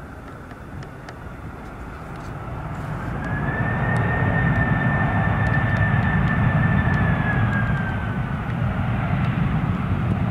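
Jet airliner engines passing close by. A loud rumble builds from about three seconds in, and a high fan whine holds steady, then drops slightly in pitch near the end as the aircraft goes past.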